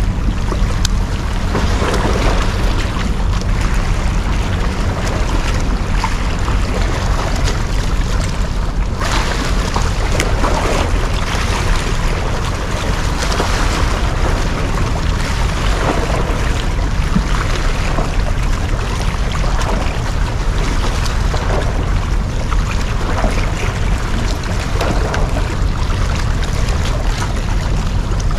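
Wind buffeting the microphone and water washing around a small boat, over a steady low rumble.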